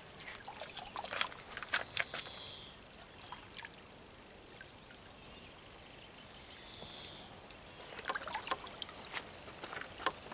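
Water splashing and slapping as a large hooked catfish thrashes at the surface while being brought alongside. The splashing comes in two flurries, one about a second in and another near the end, with quieter water sounds between.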